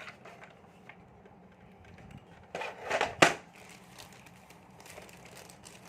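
Handling noise from toy parts and packaging: a brief rustle about two and a half seconds in, then a single sharp knock just after three seconds, the loudest sound.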